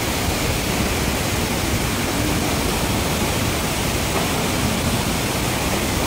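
Reichenbach Falls, a tall Alpine waterfall, rushing steadily: an even, unbroken wash of falling water.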